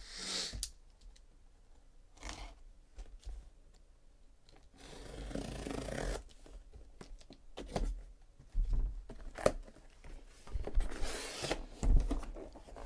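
A blade slitting the packing tape on a cardboard shipping case, in two long tearing passes, the first about five seconds in and the second near the end. Between and after them come knocks and low thumps as the cardboard box is handled and set down.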